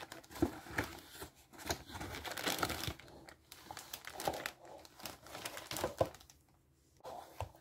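Clear plastic bag of cardboard jigsaw puzzle pieces crinkling as it is handled, stopping about six seconds in, with a light knock near the end.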